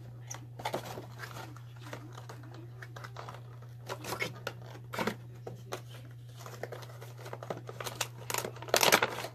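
Cardboard toy box being torn open by hand: scattered crinkles, scrapes and tears of cardboard and packaging, the loudest a rustling tear near the end, over a steady low hum.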